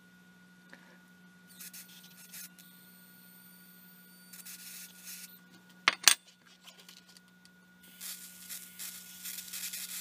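Handling and rubbing noises of a vacuum fluorescent display being turned and put down, with two sharp knocks about six seconds in. Near the end comes a stretch of hissing crackle as a plasma pen sparks at the display's pins. A faint steady hum runs underneath.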